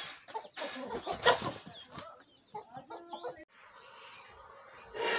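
Domestic chickens clucking, a string of short calls that cuts off abruptly about three and a half seconds in.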